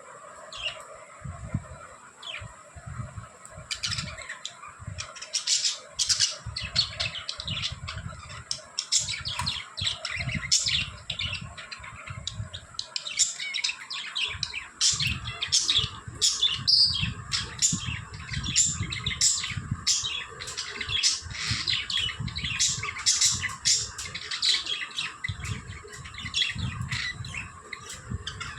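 Several budgerigars chirping and chattering, sparse at first and busier from about four seconds in, with soft low bumps beneath.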